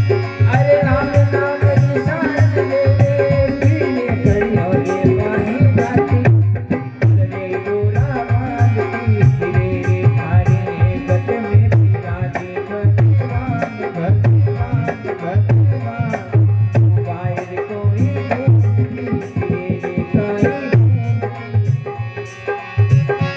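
Instrumental passage of a Marwari devotional bhajan: hand drums keep a steady rhythm under a melodic accompaniment, with a brief drop about six seconds in.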